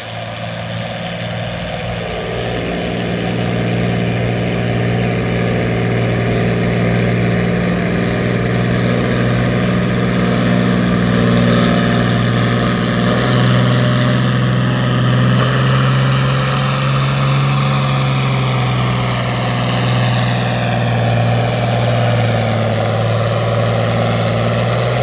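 John Deere farm-stock tractor engine running hard under full load while pulling a weight-transfer sled, a steady low drone that grows louder about halfway through.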